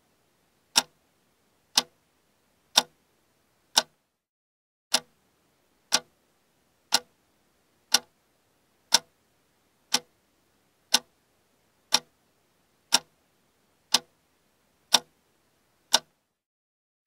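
Clock-tick sound effect ticking once a second, each tick sharp and short with silence between, counting down time to answer the quiz question.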